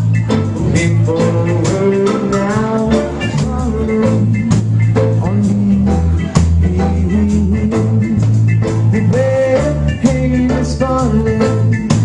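Live band playing, with drums, electric guitar and keyboards over strong low notes, and a voice singing.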